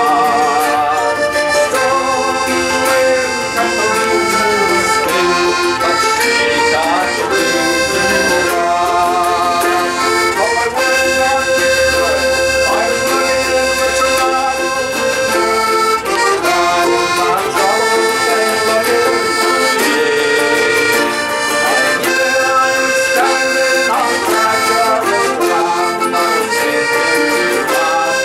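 Folk band playing a song live, a squeezebox accordion carrying the tune over a steady accompaniment.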